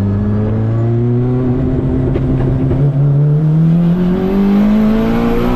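Turbocharged, engine-swapped Honda Brio accelerating hard through a second-gear pull with rolling anti-lag on, heard from inside the cabin with the windows down. The engine's pitch climbs steadily as the revs build.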